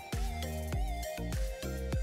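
Background music with a steady beat of drum hits under held tones.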